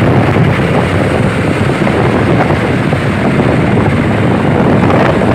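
Loud, steady rumbling vehicle-like engine noise that starts and cuts off abruptly, like an added sound effect.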